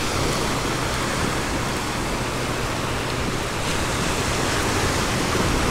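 Small ocean waves washing up on a sandy beach: a steady rushing hiss that grows a little brighter about two-thirds of the way through.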